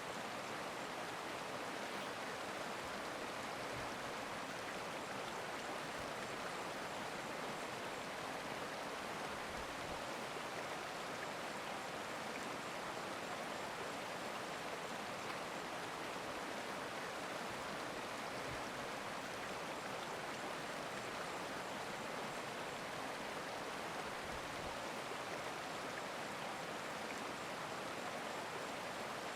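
Stream water flowing steadily, an even rushing noise that does not change.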